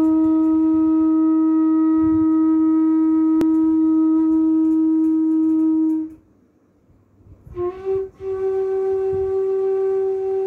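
Bansuri, a bamboo transverse flute, holding one long steady note that stops about six seconds in. After a pause of about a second and a half, it comes back with a second long note, a little higher in pitch.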